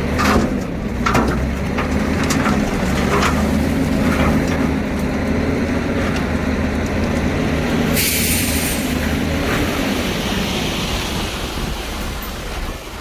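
Komatsu D41P crawler dozer's diesel engine running steadily under load, with sharp metallic clanks from the tracks and blade in the first few seconds and a short hiss about eight seconds in.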